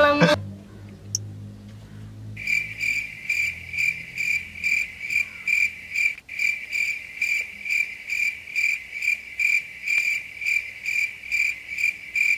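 Cricket chirping sound effect: an even, repeating run of high chirps a few times a second that starts abruptly about two seconds in. It is the stock comedy cue for an awkward silence.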